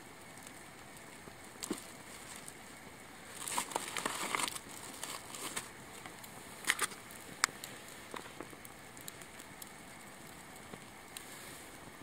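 Small wood fire crackling and popping as it burns, with a flurry of crackles about four seconds in and two sharp pops a little later.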